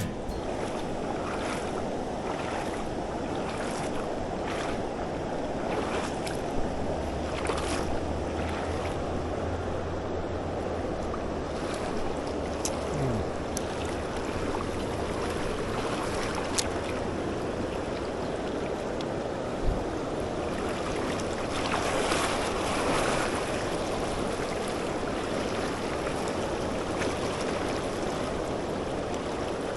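A creek running high: a steady rush of flowing water, with a few light clicks.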